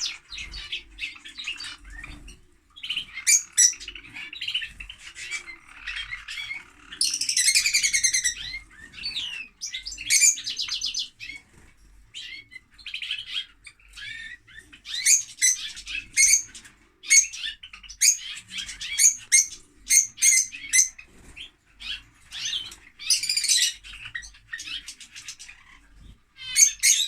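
Lovebirds chattering nonstop with rapid high-pitched chirps and shrill squawks; a longer buzzy call comes about seven seconds in.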